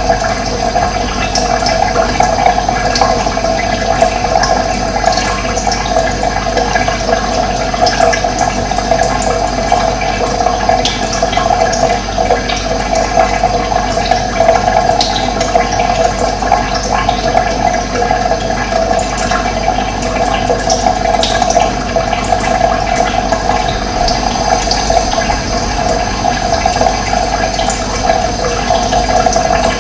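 Running water, a steady and continuous rushing flow.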